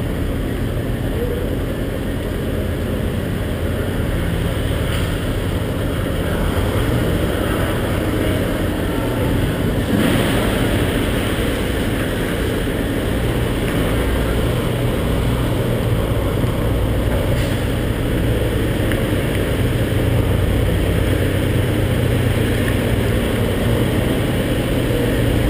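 Steady low rumble with a fainter hiss above it, growing a little louder and brighter about ten seconds in.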